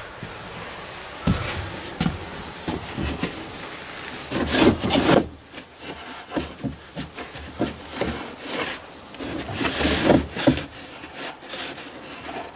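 Rustling and scratching as handfuls of sheep's wool insulation are stuffed by hand into a van's wall cavity, in irregular rubbing strokes, louder about four and a half seconds in and again about ten seconds in.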